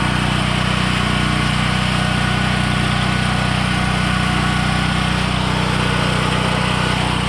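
Harbor Freight Predator 8750-watt portable generator, its single-cylinder gasoline engine running steadily at constant speed.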